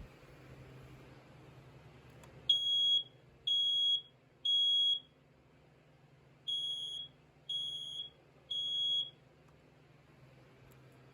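Smoke alarm sounding its test alarm: three shrill half-second beeps a second apart, a pause, then three more, the standard temporal-three evacuation pattern. A click comes just before the first beep, and a low thump at the very start.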